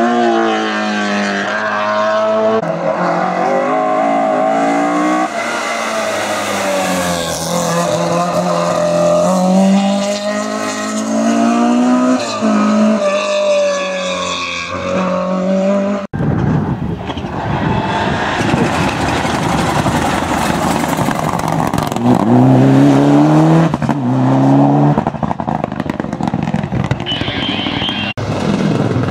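Race car engine revving hard, its pitch climbing and dropping repeatedly as it goes through the gears. An abrupt cut about halfway through leads to a noisier stretch in which another engine climbs at full throttle.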